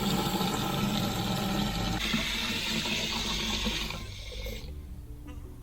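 Cordless battery pressure washer running and spraying: a steady motor-pump hum under the hiss of the water jet, which cuts off about four seconds in.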